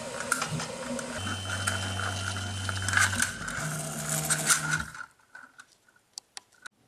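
Velleman K8200 3D printer's stepper motors driving the axes, with steady humming tones that shift pitch between moves over clicking and rattling from the frame. The motors stop about five seconds in, and a few faint clicks follow. The moves are the end-of-print motions, with the bed moving the finished part out from under the nozzle.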